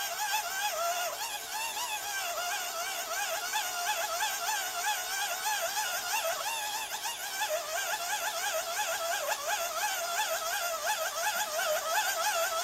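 Hand-cranked dynamo of an Eton emergency charger whining as the crank is turned, its pitch wobbling up and down several times a second with each uneven turn.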